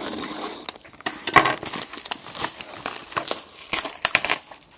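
Wrapping on a sealed box of basketball trading cards crinkling and tearing as it is pulled open, in quick irregular crackles.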